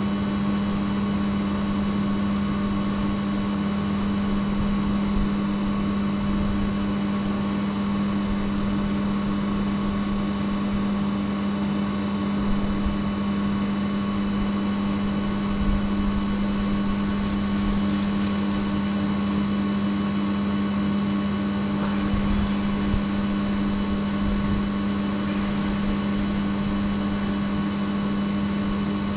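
Steady electrical machine hum with a strong low tone and several fainter higher tones, unchanging throughout, with a few faint brief hisses in the second half.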